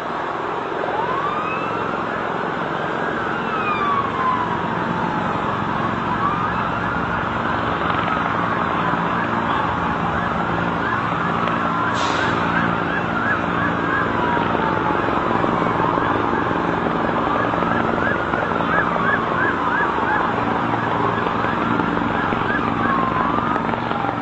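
Emergency vehicle sirens, more than one at once, wailing in slow rising and falling sweeps. Around the middle and again later they switch to a fast yelp. Steady engine and traffic noise runs underneath, with a single sharp click about halfway through.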